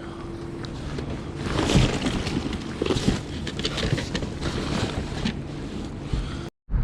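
Wind buffeting the microphone outdoors, a gusting rush that swells and fades, with a few faint knocks. The sound cuts out completely for a moment near the end.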